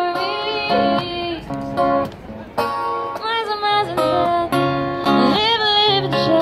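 Street buskers' song: a woman singing long, wavering held notes into a microphone over a strummed acoustic guitar, both played through a small amplifier.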